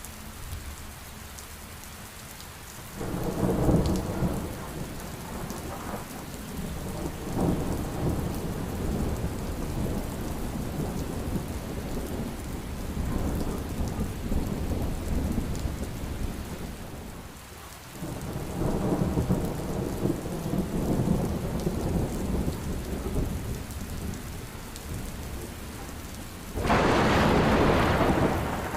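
Heavy rain falling steadily, with rolling thunder rumbling twice, first a few seconds in and again past the middle. Near the end a louder, brighter crash comes in suddenly and cuts off just as suddenly.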